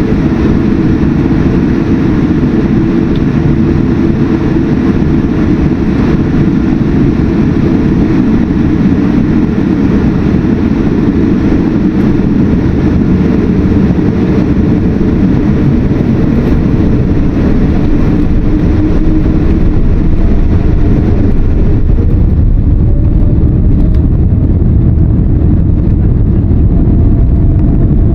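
Boeing 787-10 jet engines and airframe noise heard inside the cabin, steady and loud, as for a takeoff. About two-thirds of the way through, the high hiss falls away while the deep rumble grows and a faint rising tone comes in.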